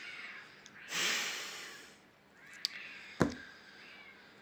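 A man's long exhaled sigh about a second in, followed a couple of seconds later by a single short, sharp knock.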